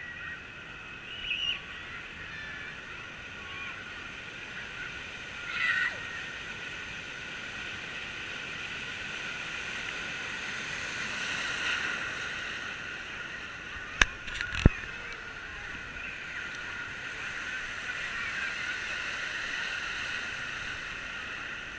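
Water park ambience: steady sloshing and splashing water under a hubbub of distant voices. Two sharp knocks come in quick succession about two-thirds of the way through.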